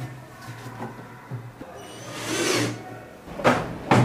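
Knocks and clatter of washing-machine parts being handled and fitted back together, with a brief hissing swell about two seconds in.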